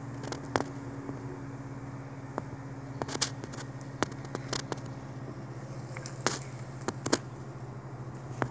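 A steady low mechanical hum, with scattered sharp crackles and clicks from close by, the loudest about half a second in, about three seconds in and around six to seven seconds in.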